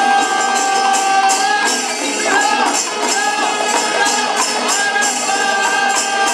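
Kathakali accompaniment music: ilathalam hand cymbals clash in a steady beat under drums. A sung melodic line holds notes and bends into pitch glides from about two seconds in.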